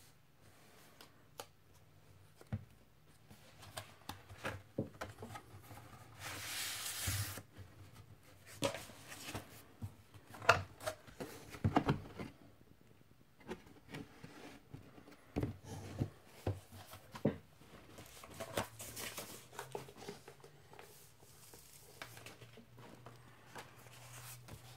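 A vinyl LP's cardboard gatefold jacket and paper inner sleeve being handled: scattered light taps, clicks and rustles, with one longer rustle lasting about a second, roughly six seconds in.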